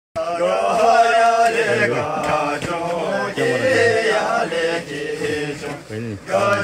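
A group of men chanting together in unison, a slow sung chant with drawn-out, wavering notes.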